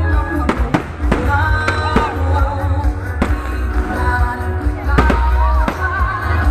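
Loud music with a heavy bass beat and a singing voice, with aerial firework shells going off several times through it as sharp bangs.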